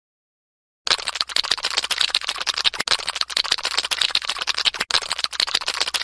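A snail sound effect: fast, dense crackling clicks that start out of silence about a second in, with two very short breaks.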